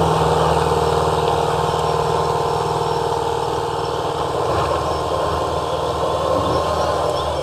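Subaru engine held at steady revs under load while climbing a steep, muddy hill, with the driver left-foot braking to keep traction. The pitch stays flat, and the sound cuts off abruptly near the end.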